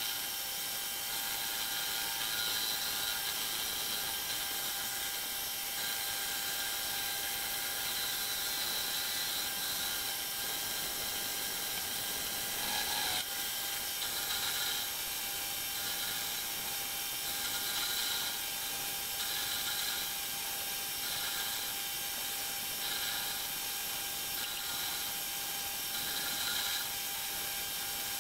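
Homemade metal lathe running, its tool bit turning down a spinning steel shaft: a steady machine whine with a higher cutting note that comes and goes about every second and a half in the second half. A brief knock about halfway through.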